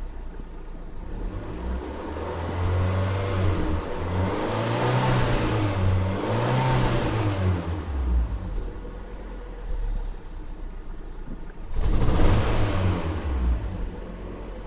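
Fiat Punto 188 engine being revved with the throttle and dropping back to idle, misfiring. The revs climb a few seconds in and rise and fall several times, drop back to idle around eight seconds in, then one sharp blip of the throttle comes near the end.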